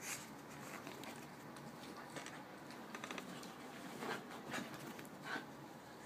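Two small dogs play-wrestling on carpet: faint scuffling and pattering of paws and bodies, with a quick run of clicks about three seconds in and a few short louder scuffles in the second half.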